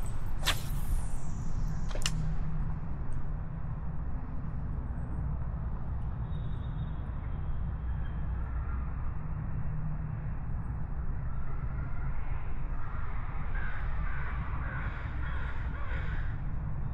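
Spinning rod cast: a sharp swish about half a second in and a click about two seconds in, then the lure being retrieved over a steady low rumble of moving water and wind. A few short bird calls near the end.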